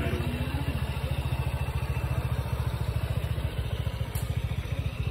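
A vehicle engine idling close by: a fast, even low throb.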